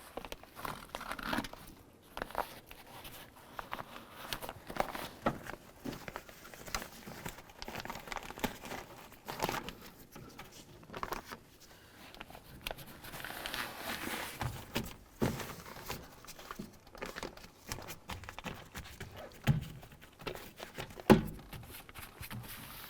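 Plastic door water shield and tape being handled: irregular crinkling and rustling with scattered small clicks and knocks, and one sharp knock about 21 seconds in.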